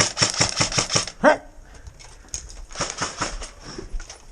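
Airsoft gun firing in two rapid bursts of about ten shots a second, with a short sharp cry between them.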